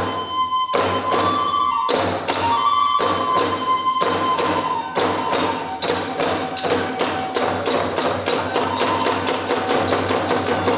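Hiroshima kagura festival music: a bamboo flute holds a high tone over the first few seconds while drum and hand-cymbal strokes speed up steadily, from about one a second to several a second by the end.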